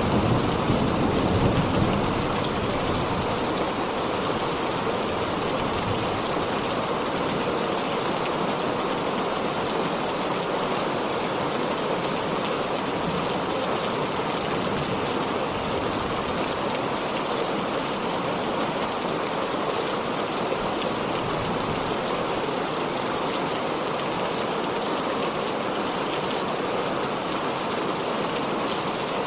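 Heavy rain falling steadily, with the tail of a thunder rumble dying away in the first couple of seconds.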